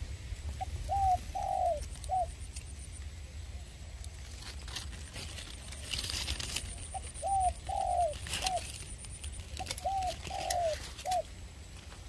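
A dove cooing: three phrases a few seconds apart, each a short note, two longer falling notes and a short closing note.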